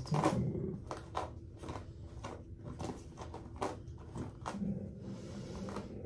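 Irregular scratchy ticks of a plastic paddle hairbrush's bristles as shed hair is picked and pulled out of it.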